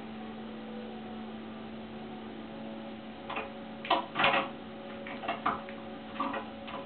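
Cat pawing at a bathtub's metal drain stopper, making it rattle and click: a run of short sharp clicks starting about three seconds in, loudest around four seconds in, over a steady low hum.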